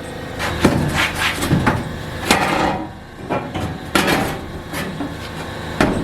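Irregular knocks and clanks of sheet metal as a school bus's interior wall panel is pried and ripped away, with a short scraping stretch about two and a half seconds in.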